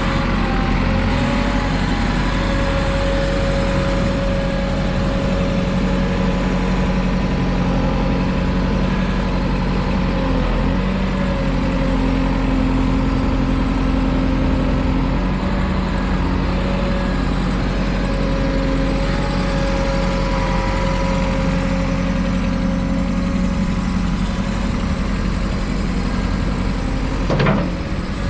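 2010 JCB 4CX backhoe loader's four-cylinder diesel engine running steadily at an even, idle-like speed. There is a single short knock or clank about a second before the end.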